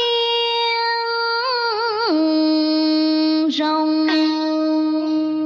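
Cai luong music: a voice holds long drawn-out notes with vibrato, stepping down to a lower held note about two seconds in, over a soft accompaniment.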